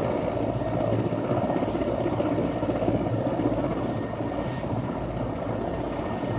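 Helicopter running, with a steady rapid beat of the rotor blades that eases slightly in the second half.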